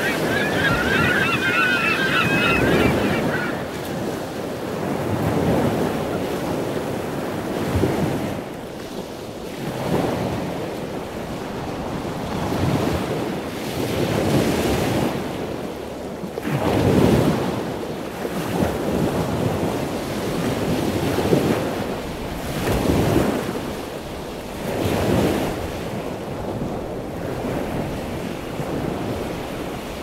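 Ocean surf breaking on the beach, swelling and fading every two to three seconds, with wind buffeting the microphone. A few wavering high calls are heard in the first three seconds.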